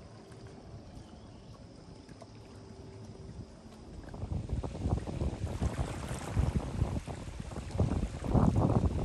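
Wind gusting across the microphone: a low, uneven rumble that sets in about four seconds in and surges louder toward the end, over a faint steady hiss.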